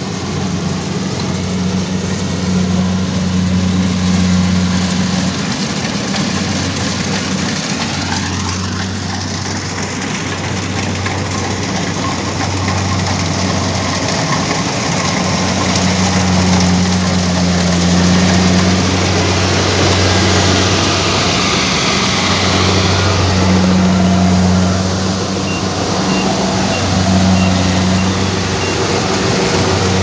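Kubota rice combine harvester's diesel engine running under load as it cuts and threshes rice, a steady drone that swells and dips every few seconds, with the rattle of the threshing works over it.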